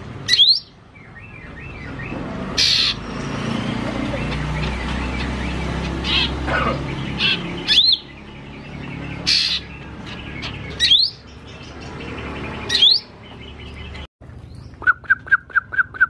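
Caged green leafbird (cucak ijo mini) singing a varied, mimicking song of sharp rising whistles and harsh scratchy calls, over a low steady rumble. Near the end, after a sudden cut, comes a quick run of short repeated chirps, about four a second.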